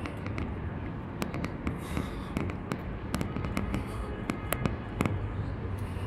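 Outdoor city ambience: a steady low rumble with many sharp, irregular clicks and taps, several a second.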